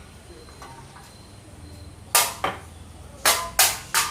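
Five sharp knocks, loud and sudden: two about a third of a second apart starting about two seconds in, then three more in the last second.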